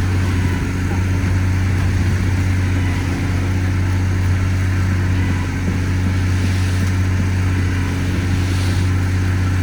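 Heavy diesel truck engine running steadily at a constant speed: a low, even drone with no change in pitch, as from the concrete boom pump or mixer truck working during the pour.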